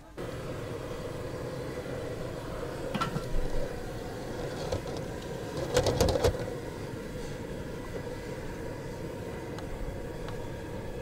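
A steady mechanical hum with a constant tone, broken by a few short clattering knocks about three seconds in and again around six seconds.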